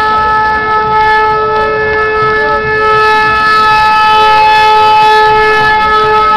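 A horn held on one long, loud, steady note, with a second, fainter note wavering up and down beside it now and then.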